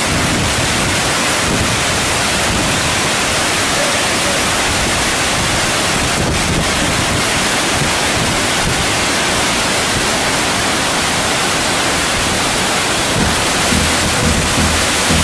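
Lodh Falls waterfall: the steady, loud roar of a large volume of water falling and crashing.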